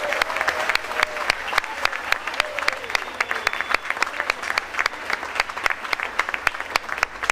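Audience applauding steadily as a tango performance ends.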